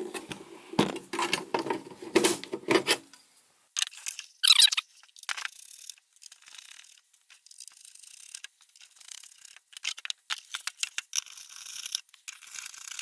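Handling noise from a benchtop multimeter's plastic and metal case being moved on a bench: a few seconds of knocks and rubbing, then a brief high squeak about four seconds in, followed by scattered light clicks and scraping.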